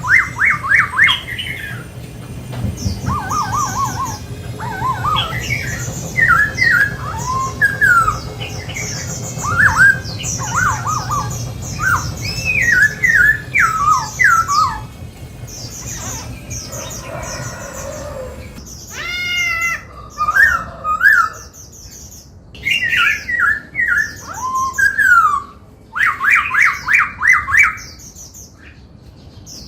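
Black-throated laughingthrush singing: a long series of loud, varied phrases of fast trills and sweeping whistled notes, with short pauses between them.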